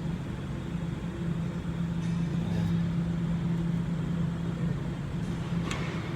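A steady low machine hum, with one short, sharp click near the end.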